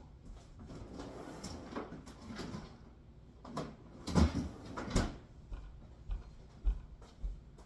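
Rustling and handling noise, then a string of sharp knocks and clunks, the loudest about four to five seconds in: containers being handled and set down, or a cupboard or drawer being shut.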